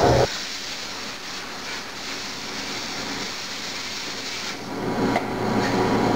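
Machine-shop background noise: a steady hiss of running machinery. A louder low rumble starts about four and a half seconds in and cuts off sharply near the end.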